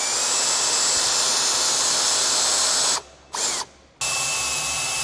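Cordless drill running in reverse, drilling into a broken stud with a left-handed cobalt drill bit to back the stud out. The motor whine runs steadily for about three seconds and stops, then comes a short burst, and a second steady run starts about a second later.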